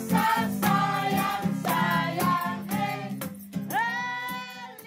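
Background music with singing, fading out near the end.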